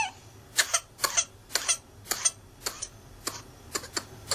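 A child's whooping-cough (pertussis) paroxysm: a run of short, sharp coughs in quick succession, about two a second and often in pairs, growing fainter near the end.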